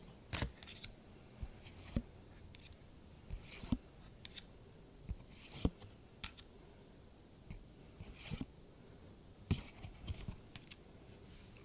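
Magic: The Gathering trading cards being handled and slid one behind another in the hand: short, irregular scrapes and light snaps of card stock, about one every second.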